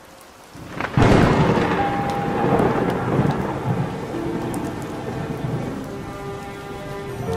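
A loud clap of thunder about a second in, rumbling and slowly fading over the following seconds, over steady rain. Faint slowed music plays underneath.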